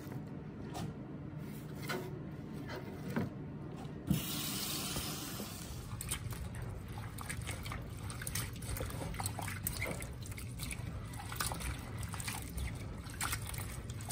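Light rustling and knocks of Chinese cabbage leaves handled on a cutting board. About four seconds in, a tap runs briefly, then water splashes and sloshes as a hand swishes sliced cabbage in a plastic bowl of water in a stainless steel sink.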